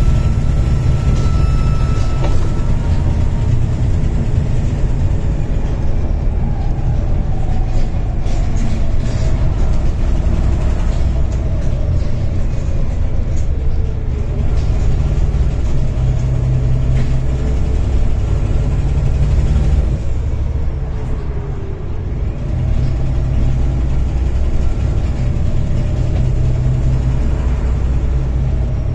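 Volvo B7TL bus's six-cylinder diesel engine running hard under load: a loud low rumble whose note slowly rises and falls. A high, steady turbo whine sounds over it for the first couple of seconds and then stops.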